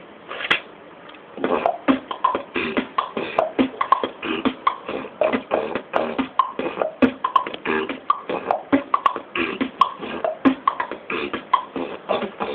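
Beatboxing: one sharp mouth click, a short pause, then from about a second and a half in a fast, dense rhythm of vocal kick, snare and click sounds.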